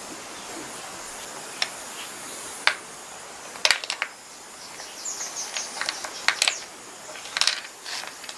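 Scattered light clicks and short metallic clinks of small tools and parts being handled, with a few sharper taps around the middle and a busier run of clinks in the second half.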